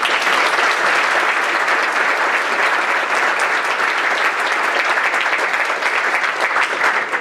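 Audience applauding, a steady loud clapping from many people at the close of a speech.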